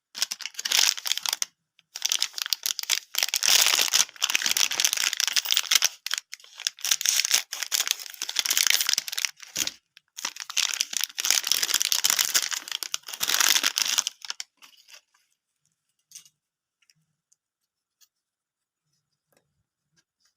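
Snack wrapper being crinkled and torn open by hand, in several long spells of crinkling that stop about two-thirds of the way in, followed by a few faint clicks.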